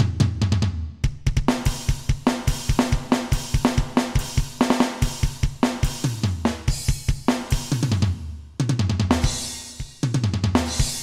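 Alesis Nitro Mesh electronic drum kit played with custom sampled drum sounds, taken straight from the module rather than from the pads in the room: fast, dense kick drum strokes under snare and cymbal hits. The playing breaks off briefly twice near the end, each time coming back in with a cymbal crash that rings and fades.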